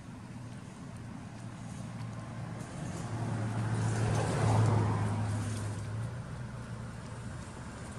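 A motor vehicle passing by: a low engine hum with tyre noise grows louder to a peak about halfway through, then fades away.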